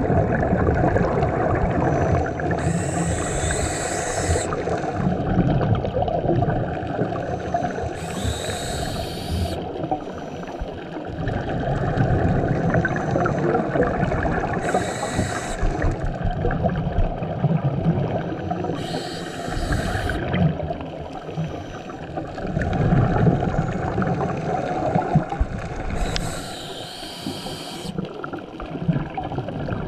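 Scuba divers breathing through regulators underwater: five hisses about every five to seven seconds, over a steady low rumble of water and bubbles.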